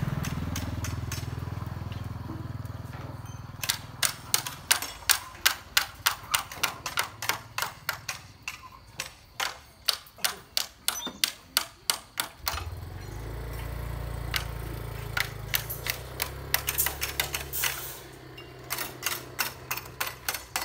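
Hand tool striking hard building material, sharp blows at about two to three a second, in two runs with a short break just past the middle. A motor vehicle's engine hums and fades during the first few seconds, and another engine runs through the second half.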